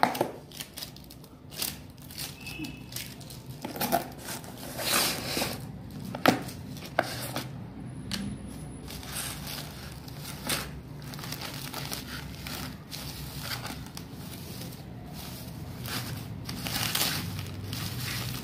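Plastic packaging and bubble wrap crinkling as hands unwrap a parcel, with irregular sharper crackles among the rustling.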